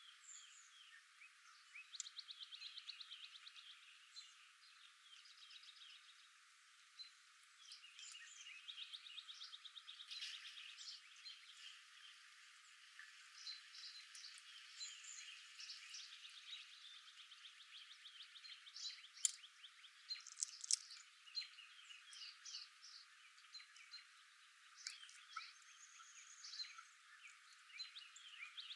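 Several small birds chirping and singing, with fast trills and short sharp calls overlapping throughout; a few louder chirps stand out about two-thirds of the way in.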